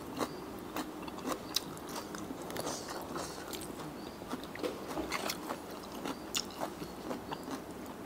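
Close-miked chewing and wet mouth sounds of someone eating, with scattered small clicks and scrapes of a metal spoon and fork stirring rice noodles in a spicy sauce.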